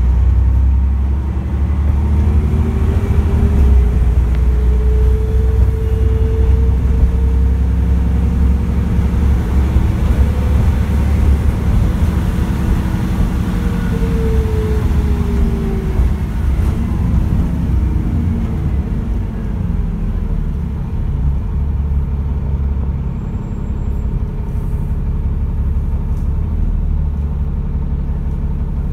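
Cabin sound of an Alexander ALX400-bodied Dennis Trident double-decker bus on the move: heavy engine and drivetrain rumble, with a whine that climbs in pitch from a few seconds in and sinks away about halfway through as the bus gathers speed and then slows.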